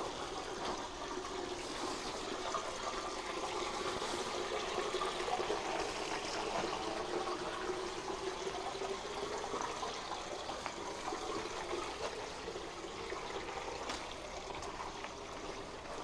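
Small stream trickling and burbling steadily over the sandstone floor of a cave.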